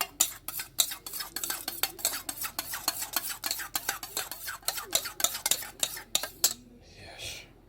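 Metal utensil scraping and clinking rapidly against a cooking pan, about five strokes a second, stopping about six and a half seconds in.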